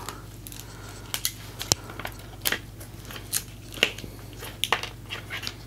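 Floral tape and paper crinkling and crackling in the hands, a run of small irregular clicks and rustles, as floral tape is stretched and wrapped around the base of a paper rose.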